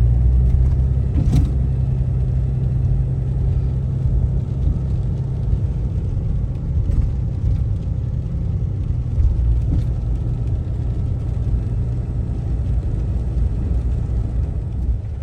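Steady low engine and road rumble heard from inside the cab of a moving truck on the highway, with a single short click about a second in.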